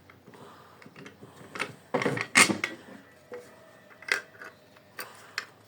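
Small metal parts clinking and knocking as a bolt, washers and nut are handled and fitted into place, with a cluster of louder knocks about two seconds in.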